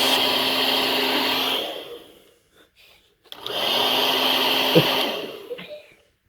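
Hair dryer running with a steady whirring hum, switched off so it winds down to silence, then switched back on about a second later, running briefly and winding down again.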